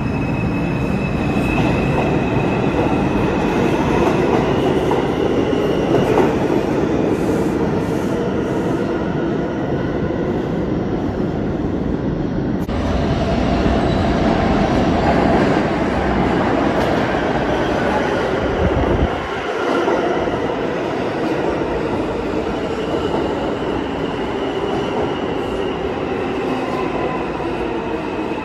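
New York City subway trains, R142/R142A cars, rumbling over the rails with a thin motor and wheel whine. One train pulls out of the station. After a cut about halfway through, another comes in from the tunnel and runs in along the platform with squealing wheels.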